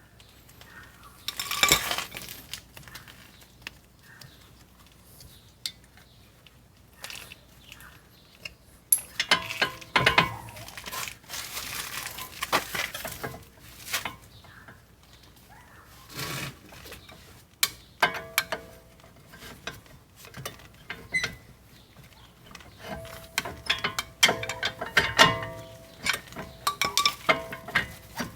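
Metal brake parts and hand tools clinking, clattering and scraping as the front brake caliper and pads are worked on, with scattered knocks and a few short metallic rings.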